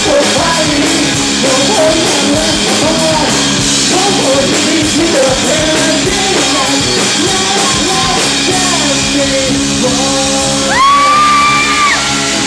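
Live rock band playing, with electric guitar, drums and a sung lead vocal. Near the end a long high note is held for about a second.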